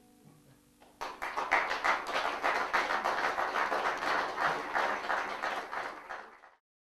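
A last guitar chord rings faintly and dies away, then audience applause breaks out about a second in and cuts off suddenly near the end.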